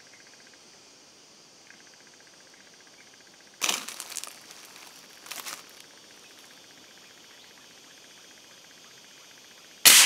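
A single sharp shot from a scoped PCP air rifle near the end, the loudest sound, dying away quickly. Two shorter rustling noises come a few seconds earlier.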